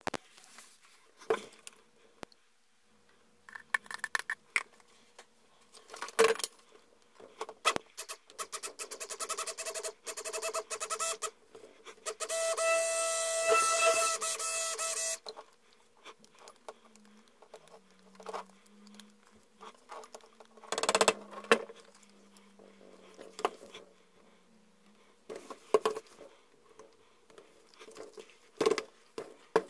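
Hand-held stick blender running in a bowl of cold process soap batter, first in a stuttering run of short pulses, then steadily for about three seconds a little before the middle. Scattered knocks and scrapes of a spatula and plastic cups on a stainless steel work surface come before and after it.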